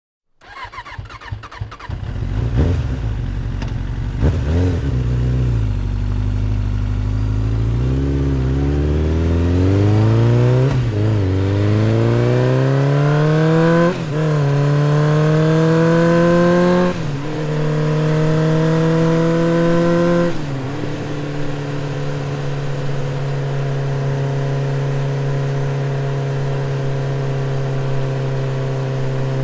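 Motorcycle engine starting up with a few uneven pulses, then pulling away and shifting up through the gears: the pitch climbs and drops back at each shift, about every three seconds. After the last shift it settles into a steady cruise.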